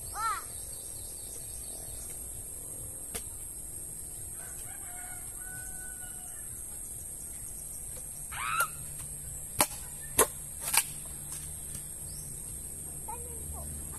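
A rooster crows in the distance and chickens give short calls. Near the end, three sharp knocks of a machete blade striking bamboo.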